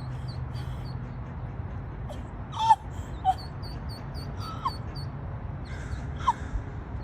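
Ducklings peeping: many short, high chirps in quick runs, with four louder short falling cries spread through, over a steady low hum.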